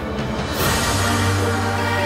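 Background music, with a bright swell about half a second in and a sustained low note entering about a second in.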